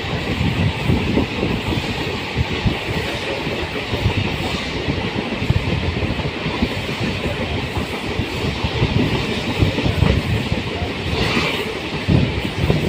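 Train running along the track: a steady rumble and rattle of wheels over the rails, with a brief higher-pitched hiss about eleven seconds in.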